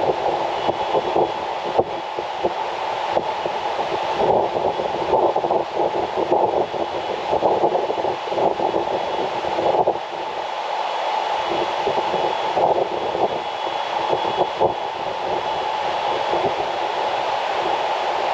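Typhoon-swollen mountain river rushing, a steady loud rushing noise.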